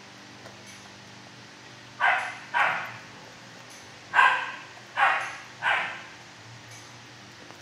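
A dog barking five times, twice and then three more times, each bark trailing off in echo in the kennel room.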